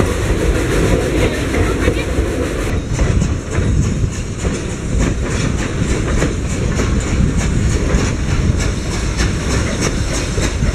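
Durango & Silverton narrow-gauge steam train heard from on board: a steady rumble of the cars rolling on the track, with repeated clickety-clack of wheels over rail joints.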